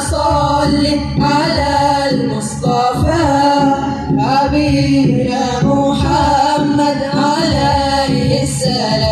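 A group of boys singing an Islamic devotional song together into microphones, a lead voice with a chorus, with a frame drum beating underneath.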